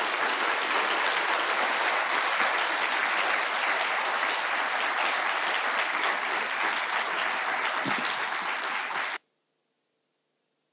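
Audience applauding steadily; the applause cuts off suddenly about nine seconds in.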